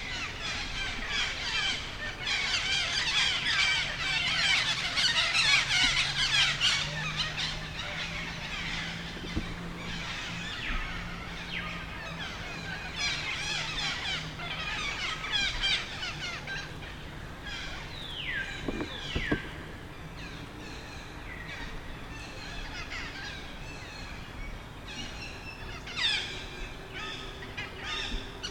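Dense, overlapping high-pitched chirps and squeals of monkeys and birds, busiest over the first several seconds, with a few clear falling squeals about two-thirds of the way through and again near the end.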